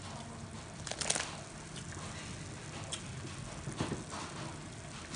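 Pork-bone broth boiling in a large metal pot, bubbling steadily, with a few splashes as chunks of green papaya drop into it, the sharpest about a second in.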